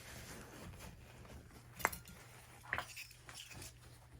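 Faint handling noise of small metal items: a few light clicks and clinks, the sharpest about two seconds in.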